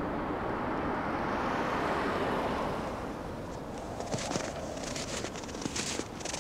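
A car passing on a snow-covered road: its tyre noise swells and then fades over the first three seconds. After that come scattered light crackling ticks.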